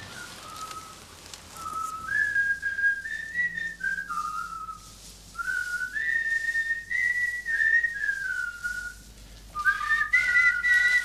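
A person whistling a tune: a single clear whistled melody in short phrases that step up and down between notes, with brief pauses about four seconds in and again near nine seconds.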